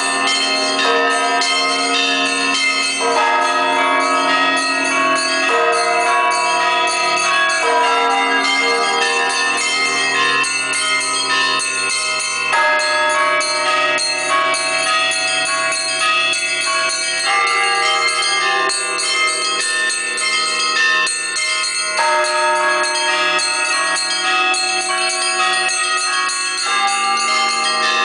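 Orthodox church bells rung in a continuous peal: several bells of different pitches struck in quick, overlapping strokes, the pattern of low and high bells shifting every few seconds.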